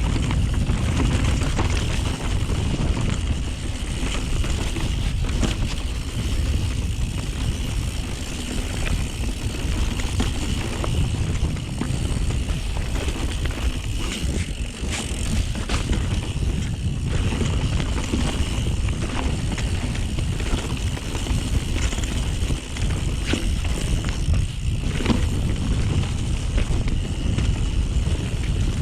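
YT Jeffsy full-suspension mountain bike riding fast down a dirt trail, heard from a chest-mounted camera. Steady rumble of tyres and wind on the microphone, with frequent clatters and knocks from the bike over bumps.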